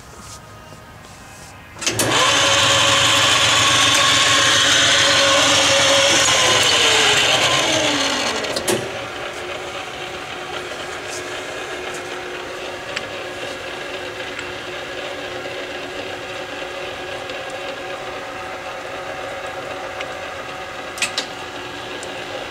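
Hardinge toolroom lathe running. About two seconds in, the spindle drive comes on with a loud high whine. Around six seconds its pitch falls as the spindle slows, and from about nine seconds a quieter steady machine hum continues.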